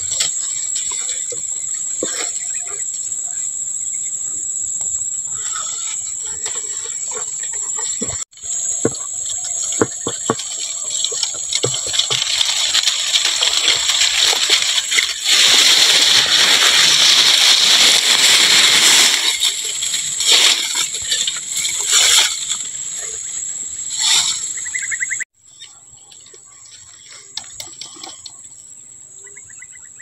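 Leaves and branches thrashing and rustling as a long bamboo pole knocks at a weaver-ant nest in thick shrubs, loudest for several seconds around the middle. A steady high insect drone runs underneath, with scattered knocks and snaps of twigs.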